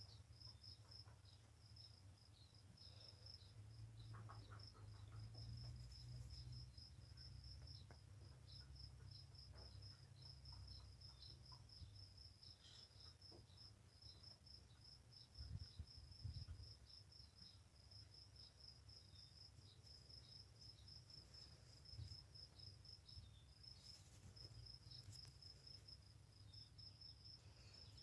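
Near silence with a faint cricket chirping steadily, a high, even pulse repeating several times a second, over a low rumble.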